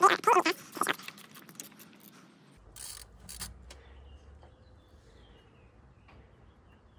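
Ratchet wrench on an extension clicking as a Torx bolt on the oil thermostat cover is turned out. The clicks come fast and loud for about the first second, thin out, and give way to a couple of knocks around three seconds in.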